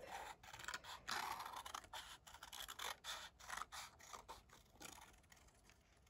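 Scissors snipping through black paper, a faint, irregular run of short cuts as a paper bird is cut out.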